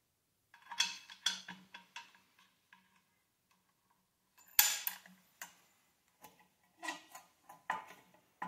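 Metal clicks and clinks from a bushing driver and steel C-clamp being set against a swingarm bearing and tightened to press it in. A cluster of clicks comes early, one louder clank lands near the middle, and more clicks follow near the end as the clamp screw is turned.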